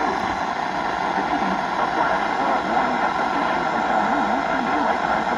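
Steady hiss of radio static from a weather-radio broadcast, with a faint wavering, voice-like sound underneath.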